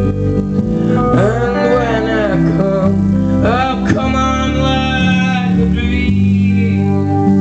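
Live band playing a slow country-tinged song: a pedal steel guitar slides and bends notes over steady sustained chords. The gliding notes come three times, about a second in, around the middle and near the end.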